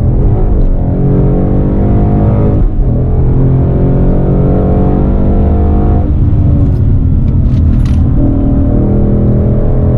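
2015 Ford Mustang GT's 5.0-litre V8 through a Borla ATAK exhaust, heard from inside the cabin under hard acceleration. The pitch climbs, drops at an upshift about three seconds in, climbs again, then falls again about six seconds in and holds steadier.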